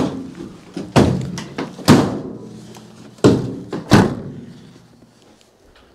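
Rear cargo doors of an Opel Movano van being shut: five heavy metal thunks over about four seconds, each ringing briefly in the van's body.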